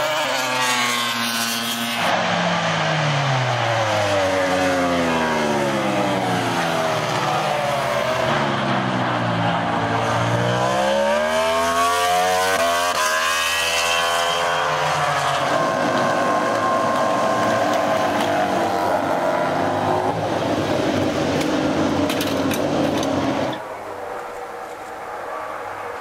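Yamaha YZR-M1 MotoGP bike's inline-four engine at racing revs, its pitch climbing and falling with gear changes and braking through the corners. About 23 seconds in it gives way to a much quieter background.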